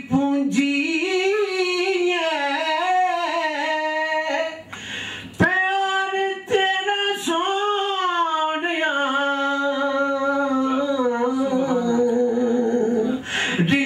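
A man singing unaccompanied into a microphone, holding long, wavering notes with ornamented runs. There is a brief breath pause about five seconds in.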